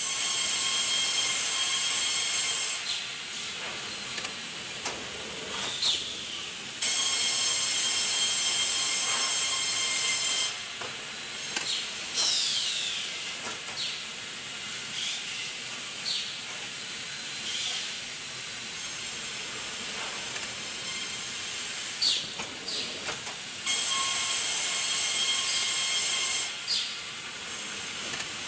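Sawmill machinery running: loud stretches of steady high whine and hiss, as of a saw cutting through wood, start and stop abruptly three times. Quieter stretches between them carry brief falling squeals and a few knocks.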